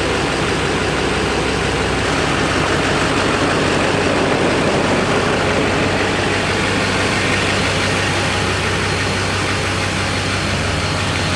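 Pickup truck engine idling steadily, a low even rumble; the deepest part of the hum eases slightly near the end.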